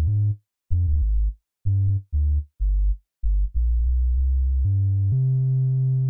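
A synthesized sub bass playing on its own, tracing the bass line of the sample: a run of short, detached low notes with gaps between them, then one long held note near the end.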